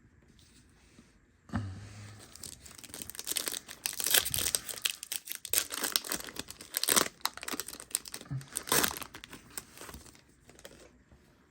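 A Yu-Gi-Oh! booster pack's foil wrapper being torn open and crinkled by hand, a dense run of crackling from about two seconds in until about ten seconds in.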